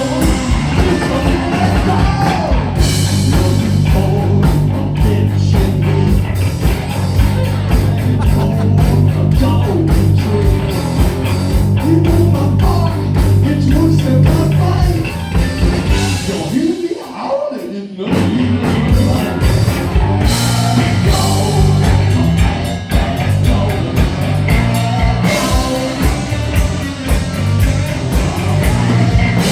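Heavy metal band playing live, with electric guitars, bass and drum kit. Just over halfway through, the low end and drums drop out for about a second, leaving a single sliding note, before the full band comes back in.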